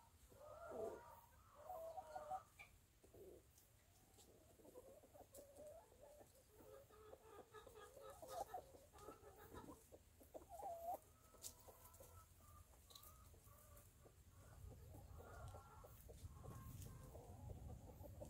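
Faint clucking of chickens, short calls coming one after another, with a low rumble rising near the end.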